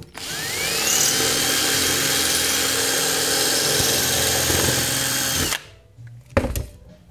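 Electric drill boring a rivet hole through a K Zildjian crash cymbal, enlarging a pilot hole: the motor spins up with a rising whine over the first second, then runs steadily as the bit cuts the metal, and stops suddenly after about five and a half seconds. A short knock follows about a second later.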